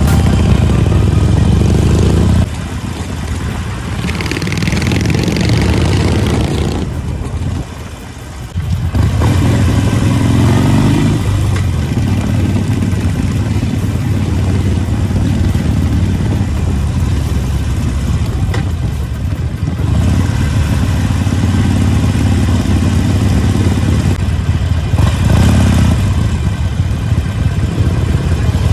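Motorcycle engines running as a group of bobber motorcycles rides along, heard from one of the moving bikes. About two and a half seconds in the engine sound drops and a hiss comes up; about nine seconds in the loud engine sound returns and runs on steadily.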